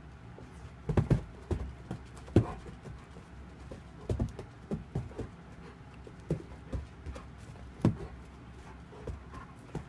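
A dog's paws thumping and scrabbling on carpet in irregular pounces as it chases a laser-pointer dot, a dozen or so short thuds with the loudest about two seconds in and near the end.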